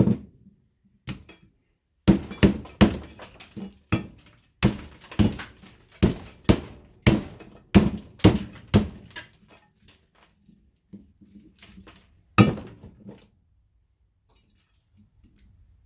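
Repeated hard strikes on a fluorescent light ballast being broken open for its copper, about two blows a second for some seven seconds, then a single louder blow a few seconds later.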